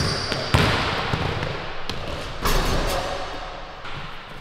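Basketball thudding on a hardwood gym floor: a few sharp thumps, each followed by a fading echo.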